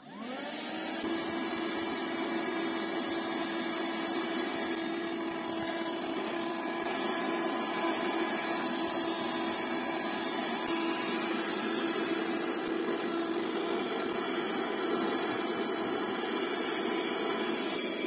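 Piranha PVC-4005 12-volt handheld car vacuum cleaner switched on, its motor whining up to speed and then running steadily while it sucks at dirt on the car's console and floor.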